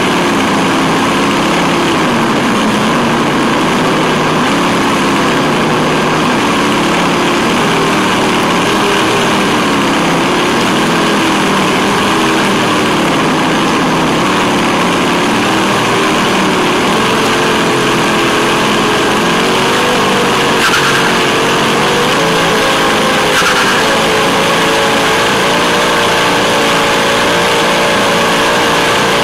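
Onboard sound of a Tamiya Wild Willy 2 RC truck driving on pavement: the electric motor and gears whine steadily over tyre and wind noise. The whine rises in pitch about two thirds of the way through as the truck speeds up, then holds at the higher pitch.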